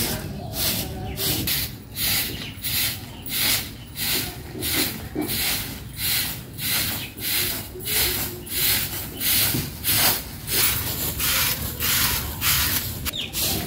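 Broom sweeping a dirt yard in brisk, even strokes, about two scratchy swishes a second.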